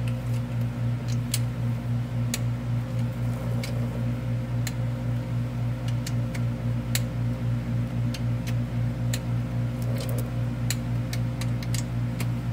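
A torque wrench tightening the bolts of a pitch stop mount bracket to the transaxle to 32 ft-lb, giving sharp separate clicks about once a second at uneven spacing. Under it runs a steady, pulsing low hum from a machine.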